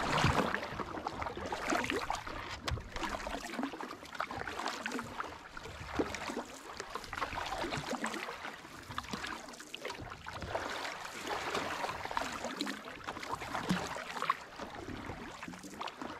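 Canoe paddles pulling through lake water, swishing and splashing, the noise rising and falling with each stroke, with a few light knocks.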